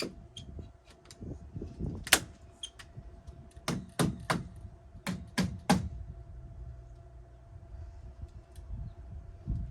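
A series of sharp knocks: one at about two seconds in, then two quick runs of three, each strike about a third of a second apart, over a faint steady hum.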